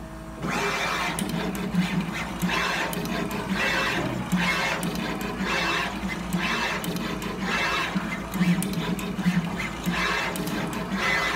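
CHM-T36 desktop SMT pick-and-place machine running: the placement head's stepper motors whine in short moves about once a second, with sharp mechanical ticks between them over a steady low hum. The sound starts about half a second in.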